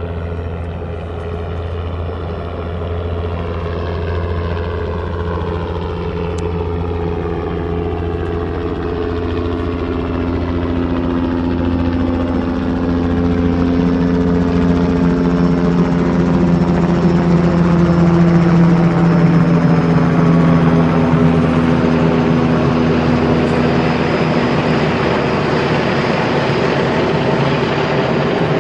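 Helicopter flying, its rotor throb and engine tones growing steadily louder to a peak about two-thirds of the way through, then holding near that level.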